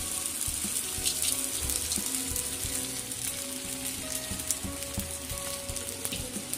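Soaked sago pearls and peanut powder sizzling in hot oil in a steel kadhai as they are tipped in from a steel pot, with a steady hiss and scattered light clicks.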